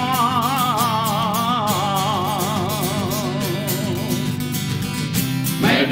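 Gallurese male folk choir singing a cappella: a long held chord, the top voice wavering with a wide vibrato over steady lower voices, then a new phrase begins near the end.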